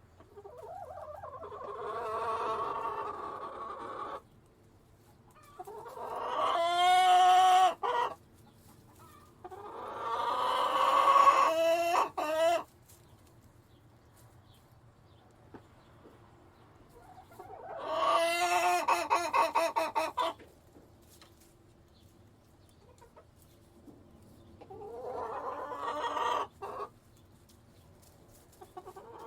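Rooster crowing repeatedly: about five long crows, a few seconds apart.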